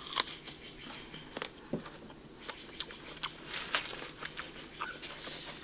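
A bite into a firm Golden Russet apple, one loud crunch just after the start, followed by chewing with many small scattered crunches.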